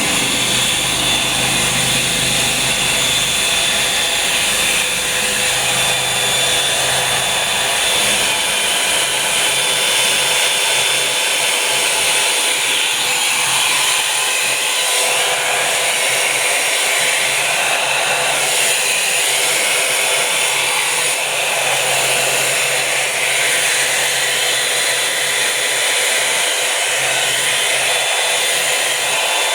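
Revlon Volumizer Plus hot-air brush hair dryer running steadily, blowing with a loud airy hiss over a thin steady motor whine, as it dries wet hair.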